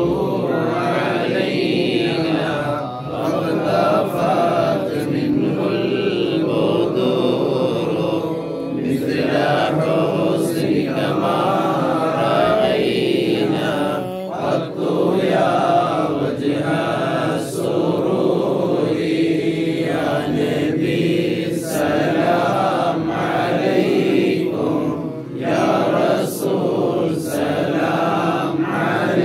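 Men's voices chanting the devotional verses of a Moulid (mawlid) recitation, led by a reciter reading from a booklet. The chant is continuous, with short breaks between phrases.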